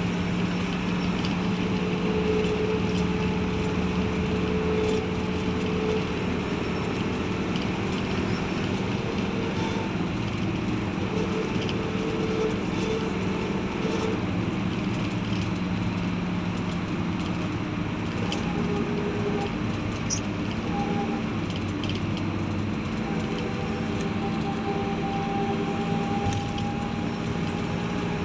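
Steady traffic noise: vehicle engines running over a continuous wash of road noise, with hums that shift slightly in pitch from time to time.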